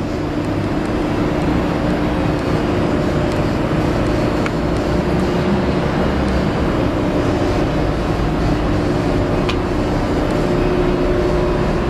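Steady drone of running machinery on a factory floor, with a constant low hum and no rhythm or change in pitch.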